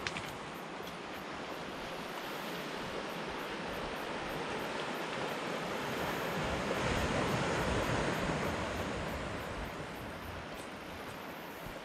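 Sea waves washing on the shore, a steady rush of surf that swells to a peak about seven seconds in and then eases off.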